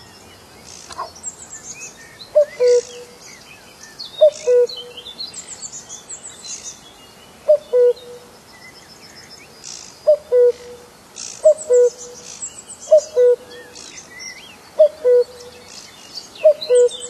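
Common cuckoo calling its two-note "cuckoo", a higher note falling to a lower one, eight times. The calls come with longer pauses at first, then about every second and a half. Smaller birds chirp and twitter throughout.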